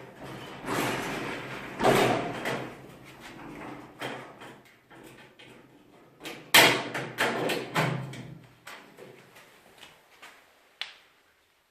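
Irregular knocks, scrapes and clatter of things being handled, loudest about two seconds in and again just past the middle, ending with a single sharp click.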